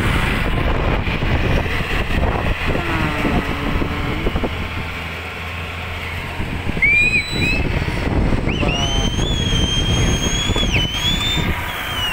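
Engines of heavily loaded trucks crawling slowly past on a rough dirt road, with wind on the microphone. In the second half, high, shrill, drawn-out tones sound over the engines, one held for about two seconds.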